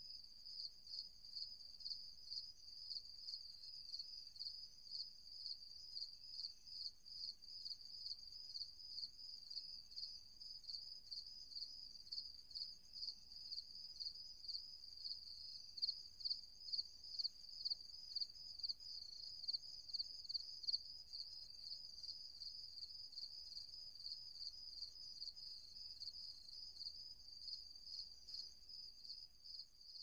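Crickets chirping: a high, even trill pulsing in regular chirps, a little under two a second, somewhat louder around the middle.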